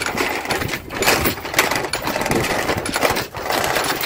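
A motor running, with irregular clattering over it.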